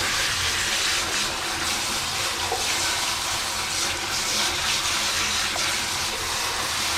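Steady rush of running water washing caked dust and lint off a part of a drum washing machine; the crud is coming away in sheets.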